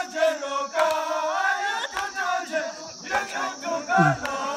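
A group of men's voices chanting together in a wavering melody, with a few sharp clicks, over a steady high hiss.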